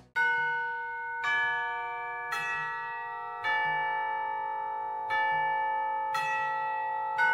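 A slow tune of bell tones, one note struck about every second, each ringing on under the next.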